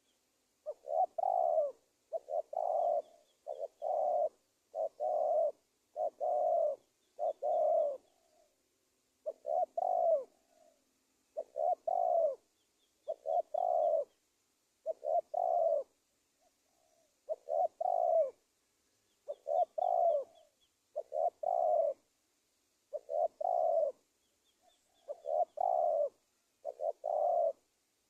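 Spotted dove (tekukur) cooing, the call of a decoy bird used to lure wild doves: a repeated phrase of low coos about once every second and a half, with two short pauses. Faint high chirping from a small bird comes in now and then.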